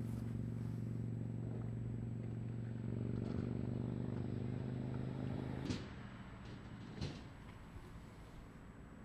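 A steady motor hum, even in pitch, that stops about six seconds in, followed by two sharp clicks a little over a second apart.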